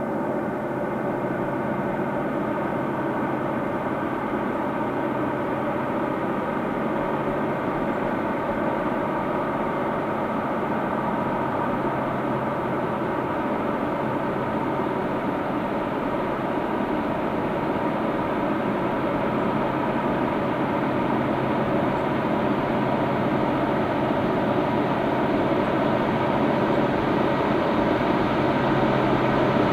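Diesel train engine running, a steady drone of several held tones that grows slowly louder toward the end.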